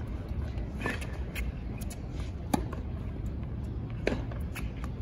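Tennis ball being struck by rackets and bouncing on a hard court during a rally: sharp pops roughly every one and a half seconds over a low steady hum.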